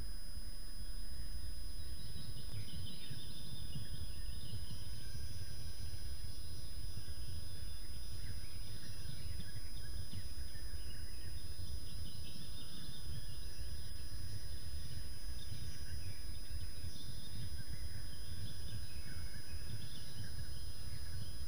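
Birds chirping and singing over a steady low rumble and a thin, steady high whine.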